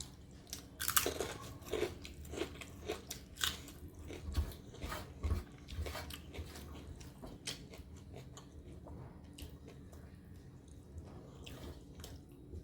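A person biting and chewing crisp fried food with loud crunches. The crunches come thick in the first few seconds and thin out after about seven seconds.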